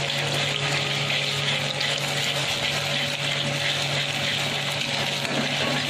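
Eggs sizzling in hot oil in a metal kadai as a metal spatula scrambles them for egg bhurji: a steady frying hiss, over a steady low hum.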